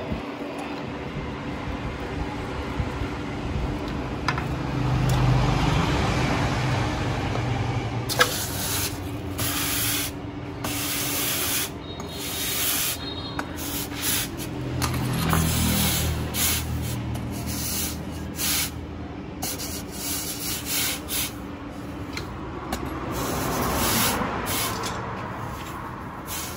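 Abrasive rasping on the steel of a knife blank being shaped. It is steady at first, then comes in short, irregular strokes with brief gaps through the second half.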